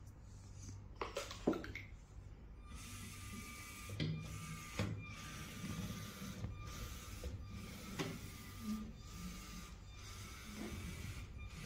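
LEGO Spike Prime driving base's motors whirring as the robot drives a square, with short pauses as it switches between moves. A few light clicks come just before the motors start.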